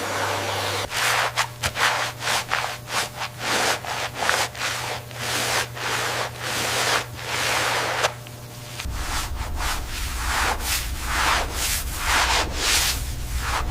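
Rhythmic rubbing strokes against a surface, about two to three a second, as in hand sanding or polishing, over a steady low hum. The strokes break off briefly a little past halfway, then carry on.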